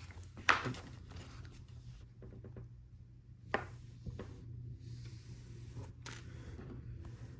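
LEGO pieces being handled on a table: several sharp plastic clicks and clatters, the loudest about half a second in, with light rustling between them.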